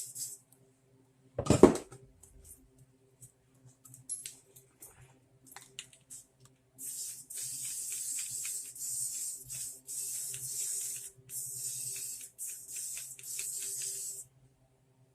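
Aerosol spray paint can spraying in four long bursts of hiss with short gaps, over the second half. A single sharp knock comes about a second and a half in.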